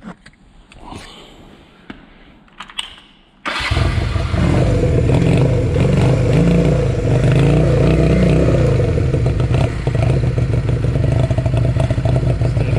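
A 1985 Honda CM125's parallel-twin four-stroke engine, its silencer's rear baffle removed, catches suddenly about three and a half seconds in after a few faint clicks and runs through the open exhaust. Its speed rises and falls a little a few seconds after starting, then settles to a steady run.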